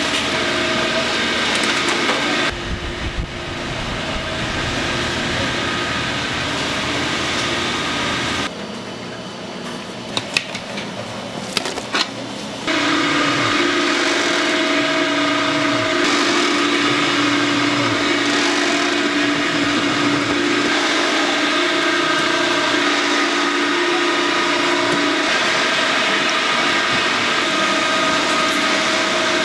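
Automated fish cake (eomuk) making machinery running with a steady mechanical hum. A quieter stretch in the middle holds a few sharp clicks before the steady hum comes back.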